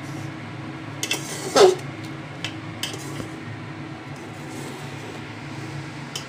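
Metal ladle knocking and scraping against an aluminium pot as fried rice is stirred and tossed. A few scattered clinks, the loudest about one and a half seconds in, over a steady low hum.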